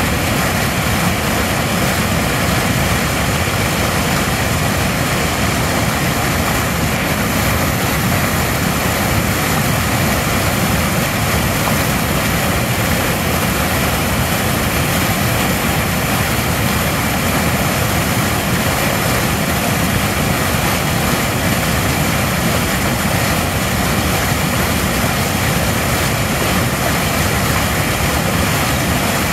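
Water rushing loudly and steadily over a low concrete weir and churning white in the pool below.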